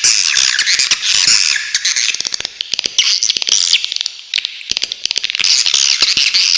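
Swiftlets calling in a dense, continuous twittering chatter of high chirps and rapid clicking trills, easing briefly a couple of times mid-way.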